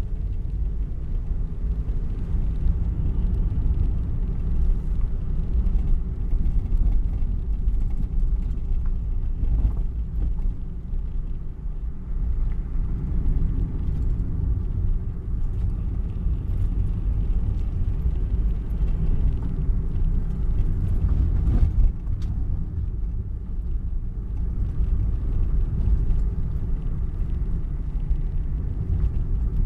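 Steady low rumble of a car's engine and tyres on the road, heard from inside the cabin while driving, with a couple of faint knocks.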